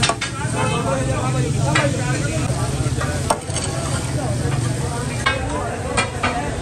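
Chicken and green chillies sizzling on a large flat iron tawa, with metal spatulas scraping across the griddle and a few sharp clanks of metal on iron.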